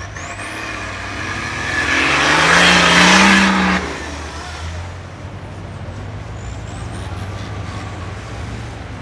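Off-road SUV's engine revving up under load on a snowy climb: the revs rise for about two seconds, cut back sharply a little before halfway, then the engine runs on steadily at lower revs.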